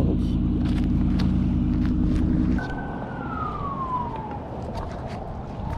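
An engine idling close by with a steady low drone, which stops abruptly about two and a half seconds in. After it, a quieter background with a single high whine gliding down in pitch.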